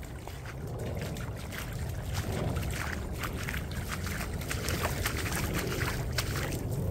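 Footsteps splashing and squelching through shallow muddy puddle water, many short splashes, over a steady low rumble.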